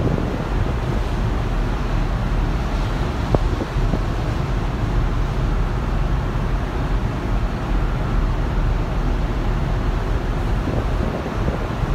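Wind buffeting the microphone over the steady rush of sea water churned up between two ships underway, with one faint tap about three seconds in.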